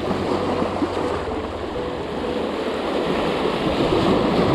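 Sea waves washing and breaking over shoreline rocks: a steady rush of surf that swells louder about three seconds in as a wave breaks into foam against the rocks.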